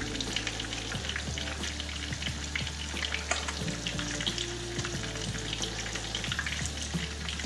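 Oil sizzling and crackling steadily, with a scatter of small pops, as crappie fries in a skillet.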